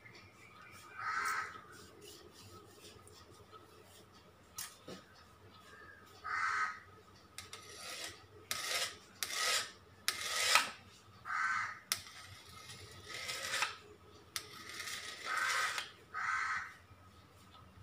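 Knife blade drawn through a thin sheet of stretched dough and scraping along the stone work surface in short rasping strokes, cutting it into strips. A crow caws every few seconds.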